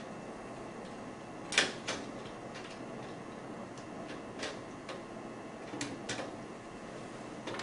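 Small flathead screwdriver prying at a plastic gear on an HP 1320 printer's metal side frame: scattered light clicks and taps, the sharpest about a second and a half in.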